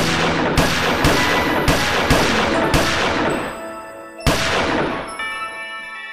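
A quick series of sharp, gunshot-like bangs, each with a long ringing tail, laid over the song's music. Six come in the first three seconds and a last one about four seconds in, after which the music carries on alone.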